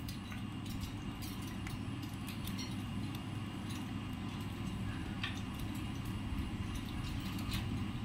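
Scattered small clicks and ticks from Alexandrine parakeets feeding and shifting on a wire cage floor, over a steady low background rumble. No calls.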